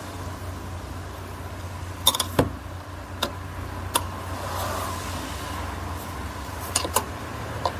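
Screwdriver work on a Phillips screw in a seat's plastic trim: a few scattered sharp clicks and taps of the metal tool against the screw, bracket and plastic, over a steady low hum.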